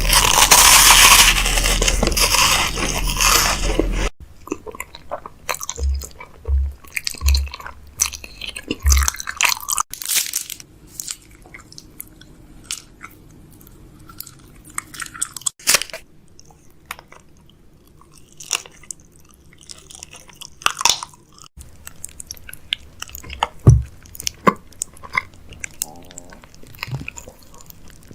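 Containers and packaging being handled while a fridge is restocked, ASMR-style. It opens with about four seconds of loud, even rushing noise, then turns to scattered clicks, taps and crinkles.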